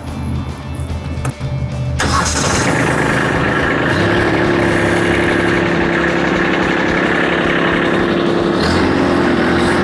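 Diesel engine of a compact construction machine starting: the engine catches about two seconds in and then runs steadily at a loud, even pace, with a steady tone coming in about four seconds in.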